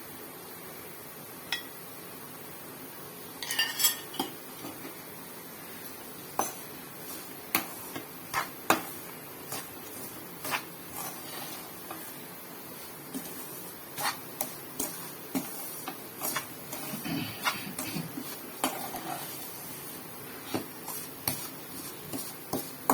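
Metal spoon scraping and clinking against a pan while stirring ghee through a semolina and sugar mixture for rava laddu, in irregular sharp clicks and knocks.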